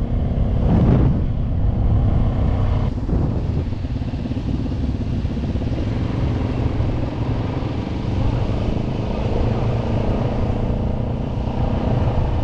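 Trail motorcycle engine running steadily under way, heard from the rider's onboard camera, with a brief swell about a second in.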